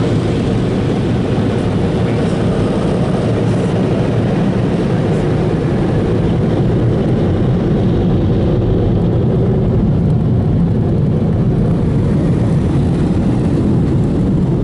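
Automatic car wash's profiling onboard dryer blowing air over the car, a loud steady rushing noise heard from inside the car's cabin as it drives the water off the glass.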